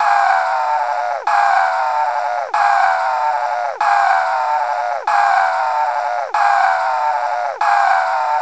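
Cartoon scream sound effect looped over and over, about once every 1.3 seconds: each is a held, high scream that drops sharply in pitch at the end before the next one starts.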